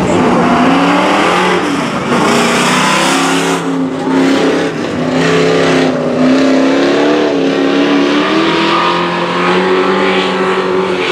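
Engines of dirt-track stock race trucks running as the pack circles the track, the pitch rising and falling as they rev.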